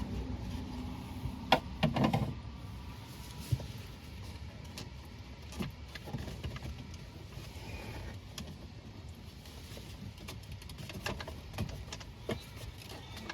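Scattered clicks and knocks of plastic steering-column trim being pried off and handled, with two sharper snaps about a second and a half and two seconds in, over a faint low steady hum.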